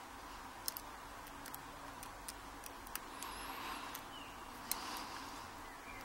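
Steel tweezers and small lock pins clicking faintly against a Mul-T-Lock Interactive lock core as a pin stack is loaded by hand: a few light, scattered ticks.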